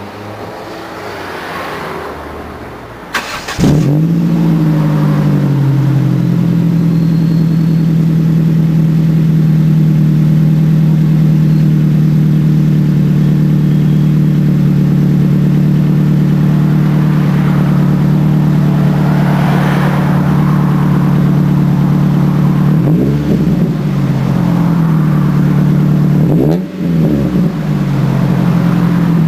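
Ford Focus engine running through a Mongoose exhaust with OBX headers and no catalytic converter. The note rises for the first few seconds, jumps sharply louder about four seconds in and holds at steady revs as a loud drone. It dips briefly a few times near the end.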